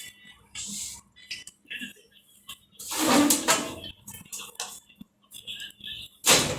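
Metal tools and parts clinking and clattering as they are handled, with a longer rasping scrape about three seconds in and a sharp loud clank near the end.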